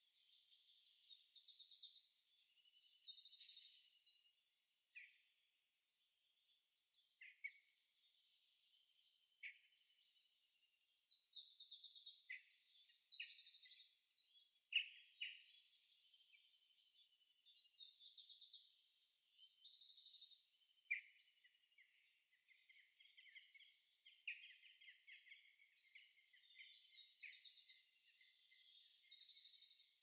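Songbirds singing: four louder warbling song phrases of two to three seconds each, several seconds apart, with short high chirps in between.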